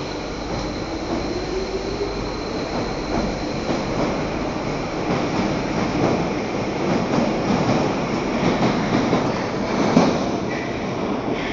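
Paris Métro line 13 MF77 train pulling out of the station: a motor whine rising in pitch as it accelerates, then rumbling and clattering wheels with rail clicks, the loudest click about ten seconds in.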